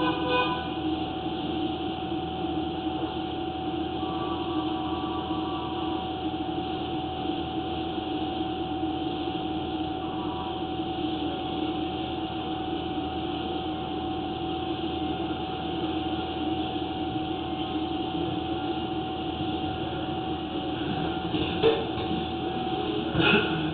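A steady machine drone with a constant hum, unchanging throughout, and two short knocks near the end.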